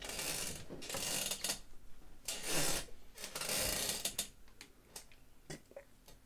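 Movement and handling noise: four drawn-out rustling, scraping sounds over the first four seconds as a person turns round and reaches for a drink can, then quieter.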